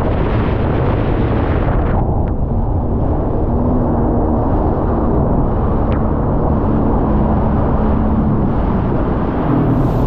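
Wind buffeting the microphone over rushing water and the running engine of a moving Sea-Doo personal watercraft: a loud, dense, steady rumble, with the upper hiss dropping away about two seconds in.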